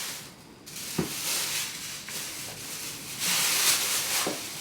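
Grocery packaging being handled, plastic rustling that grows louder near the end, with two light knocks.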